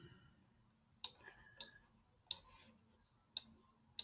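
Faint, sharp single clicks of a computer's pointer button, about five of them spaced irregularly half a second to a second apart, as an image on screen is selected and dragged to resize it.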